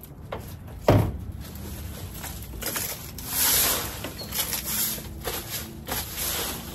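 A sharp thump about a second in. Then repeated scraping strokes of a long-handled garden tool dragged across soil and leaf litter.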